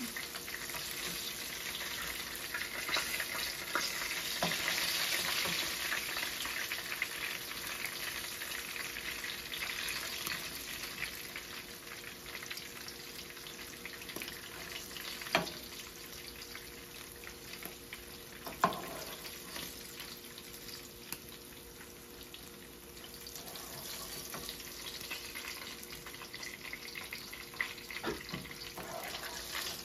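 Small whole fish frying in shallow oil in a nonstick pan, a steady crackling sizzle that is strongest for the first ten seconds or so and then settles lower. A few sharp knocks, two of them loud around the middle and one near the end, as the fish are turned and lifted out with a wooden spoon.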